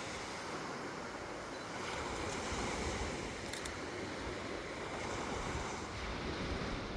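Ocean surf washing on a shore: a steady rushing noise that swells and eases gently.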